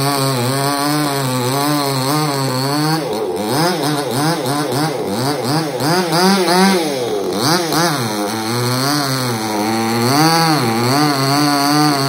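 Two-stroke petrol chainsaw cutting into a coconut palm trunk. Its engine pitch rises and falls over and over, swinging most widely in the middle.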